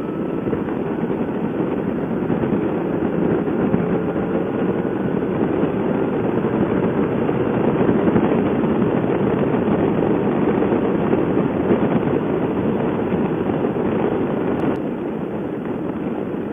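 Honda motorcycle's engine and wind rush from the rider's helmet, getting louder through the first half as the bike accelerates to overtake, with the engine note rising slightly, then easing off a little.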